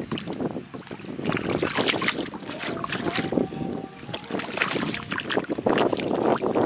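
Shallow muddy water splashing and sloshing as a plastic basket is dragged and scooped through it, in many short irregular splashes, thicker near the end.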